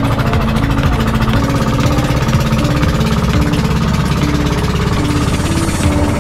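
Small wooden outrigger boat's engine running steadily under way with a rapid clatter, loud and close from on board.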